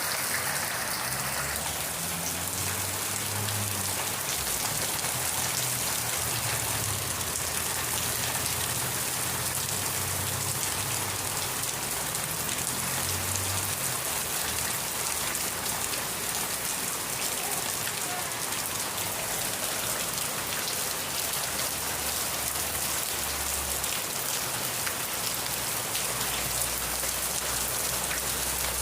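Steady rain falling on surfaces, a dense even hiss with many fine drop impacts. A low rumble sits underneath for stretches.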